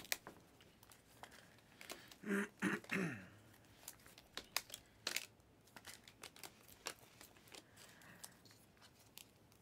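Stiff trading cards being thumbed through by hand: irregular clicks and slides as each card edge snaps off the stack, with a short wordless vocal murmur about two and a half seconds in.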